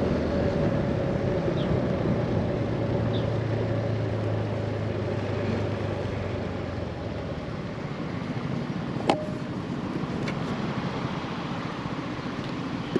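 Scooter engine running under way, with wind and road noise. The engine's steady hum fades about seven seconds in, leaving mostly wind and road noise, and there is one sharp click about nine seconds in.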